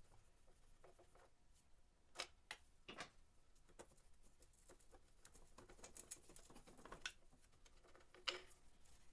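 Near silence broken by faint, scattered clicks and taps of handling, with the sharpest one near the end.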